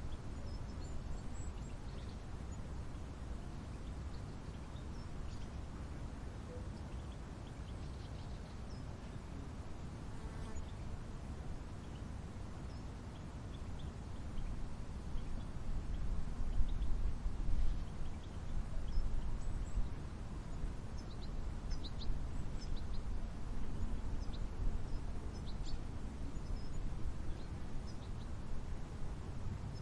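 Outdoor ambience: a steady low rumble that swells for a few seconds midway, with scattered short, high bird chirps that come more often in the second half.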